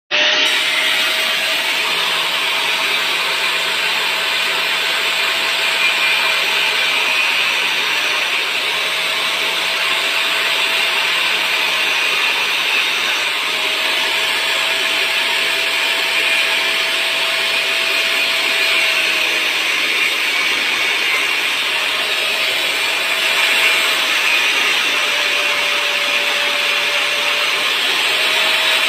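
DeWalt angle grinder running steadily and cutting into a sheep's horn, its whine breaking off and coming back several times and dropping lower for a moment past the middle.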